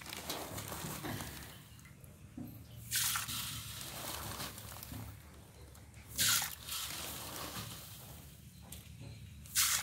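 Water sloshing in an aluminium basin as a hand stirs table salt into it to make a brine for sorting paddy seed, with three brief louder splashes about three seconds apart.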